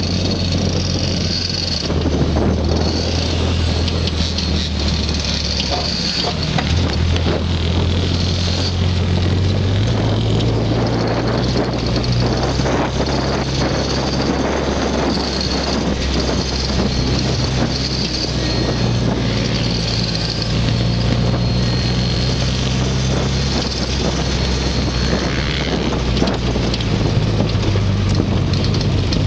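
Off-road buggy's engine running steadily as it drives a rough dirt trail, its pitch stepping up and down a few times as it changes speed, over wind noise and the knocks and rattles of the buggy over bumps, heard from on board.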